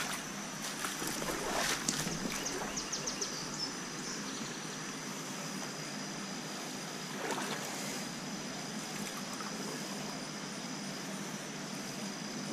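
Shallow creek water running and trickling over rocks, a steady rush, with a few light knocks in the first couple of seconds and a faint high steady tone behind it.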